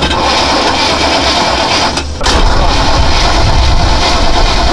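Starter motor cranking the boat's V8 engine, which does not catch, in two runs with a short break about two seconds in. The starter's solenoid contacts are oxidised and sticking.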